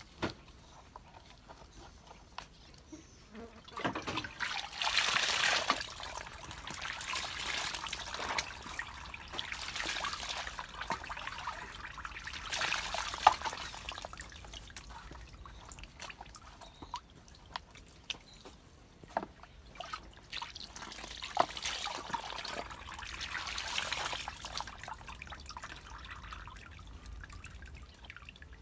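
Water poured over a small dog being bathed in a plastic basket: several splashing pours a few seconds apart, with dripping and trickling between them.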